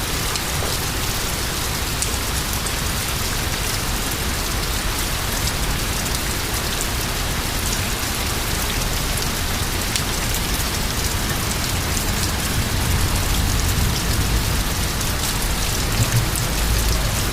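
Steady thunderstorm rain hitting surfaces, a constant hiss dotted with fine drop ticks. A low rumble swells in the last few seconds.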